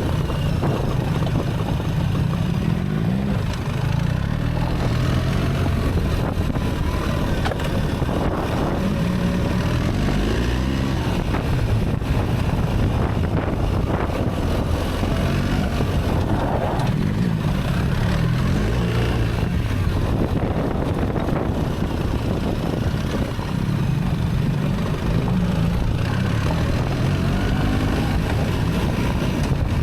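BMW R 1300 GS Adventure's boxer-twin engine running under way, its revs climbing and then dropping several times as the Automated Shift Assist changes gear.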